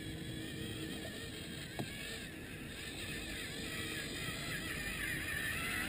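Small electric motors and gearing of a Hobby Engine RC excavator whining with a wavering pitch as the model works and drives closer, growing louder near the end. A single sharp click a little under two seconds in.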